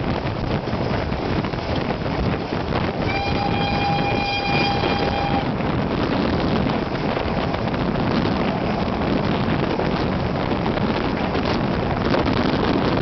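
An Ol49 steam locomotive's whistle sounds one long steady blast about three seconds in. Under it runs the steady noise of the train rolling along, with wind at the open coach window.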